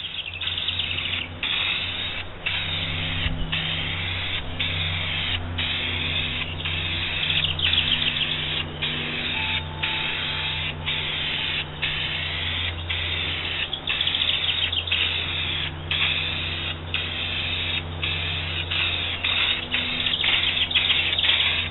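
Aerosol can of clear gloss spray-coat hissing in short repeated bursts, about one a second, as the nozzle is pressed and released over the wooden markers. A low steady hum runs underneath.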